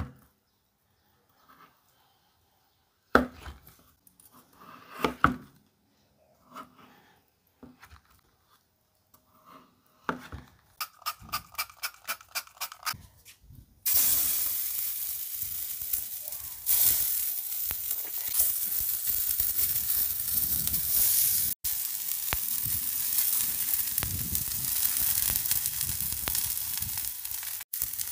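A few sharp knife cuts through frozen egg on a wooden cutting board, then a quick run of ticks. About fourteen seconds in, frozen egg slices hit a hot oiled pan and sizzle loudly and steadily. The sizzle gets louder a few seconds later.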